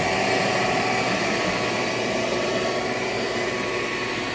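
A vacuum cleaner's motor running steadily: an even rush of air with a high motor whine.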